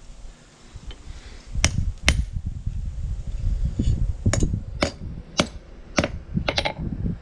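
Hand hammer striking a hot steel hay-rake tine on an anvil as the screwdriver tip is drawn out to a point: about eight sharp blows at an uneven pace, starting a little over a second in, over a low rumble.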